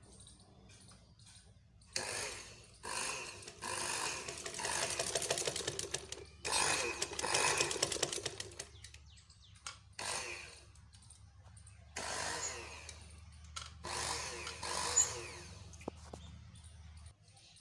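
Small electric motor on a sewing machine run in about seven short spurts of one to three seconds as the foot pedal is pressed and released, with a steady low hum underneath. The motor is sparking and not reaching proper speed; its carbon brushes are worn almost to the end.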